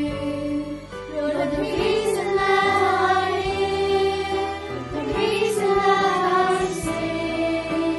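A children's choir singing a song together, young voices blended over held low accompanying notes.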